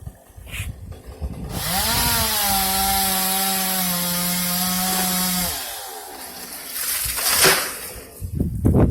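Chainsaw revving up and cutting steadily for about four seconds, then easing off. Loud noisy bursts follow near the end.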